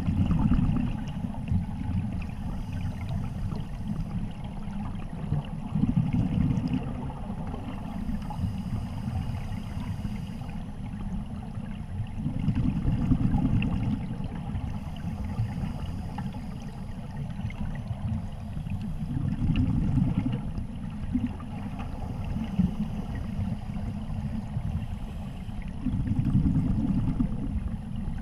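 Scuba divers' exhaled bubbles, heard underwater: a low rumbling gurgle that swells about every six to seven seconds with each exhalation from an open-circuit regulator.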